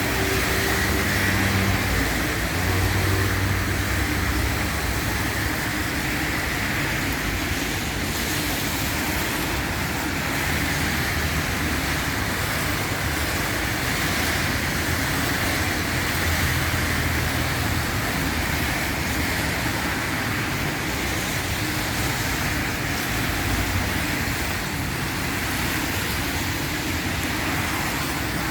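Steady road traffic noise: vehicles running past, with a low engine hum swelling now and then.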